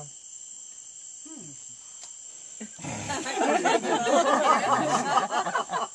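Steady high-pitched insect drone in the background; about three seconds in, several loud voices break in at once and overlap until the end.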